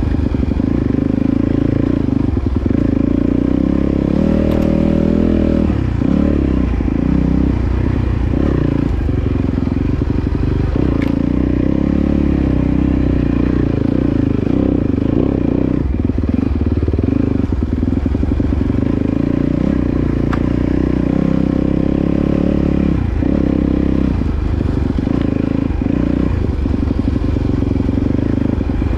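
Off-road dirt bike engine running under way, its pitch rising and falling with the throttle as the bike is ridden along a rough dirt trail.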